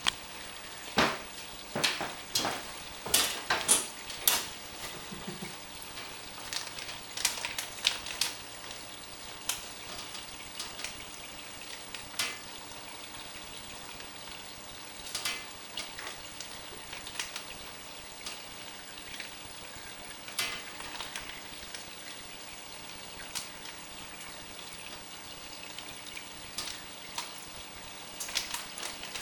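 Aquarium water making small irregular splashes and drips over a steady hiss, with a cluster of quick splashes in the first few seconds and scattered ones after.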